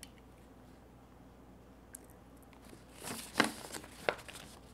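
Sheets of paper rustling and crinkling as they are handled, in a short cluster of crackles starting about three seconds in.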